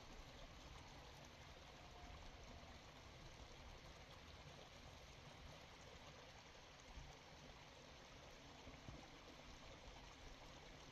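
Near silence: a faint, steady outdoor hiss with no distinct events.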